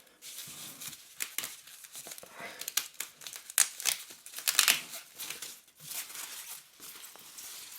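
Foam packaging being pulled apart and unwrapped by hand: irregular rustling and crinkling with sharper crackles throughout.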